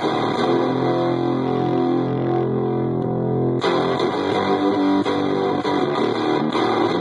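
Electric guitar played through a breadboard prototype fuzz pedal with its boost stage switched in, sounding chords through an amp. A chord rings and fades, then a fresh chord is struck sharply about three and a half seconds in.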